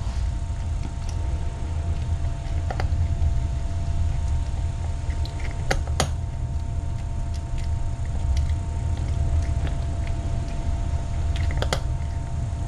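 A cat eating a snack, with occasional sharp clicks of chewing, over a steady low hum and a faint steady tone.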